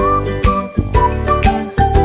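Background music with a steady beat of about two strokes a second and a bright jingling, like jingle bells, over a melody.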